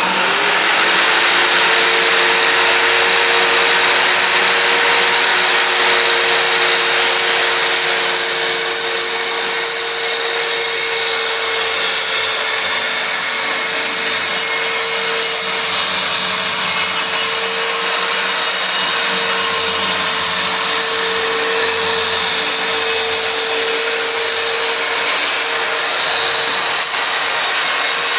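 Metabo 7 1/4 inch circular saw starting up, its whine levelling off within the first second, then running steadily and loudly throughout.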